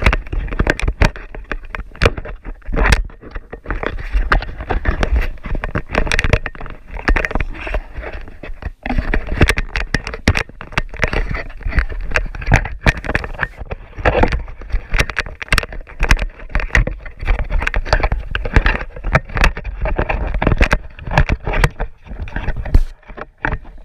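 Battery-powered RC car driving over rough ground: continuous rattling and scraping broken by many sharp knocks.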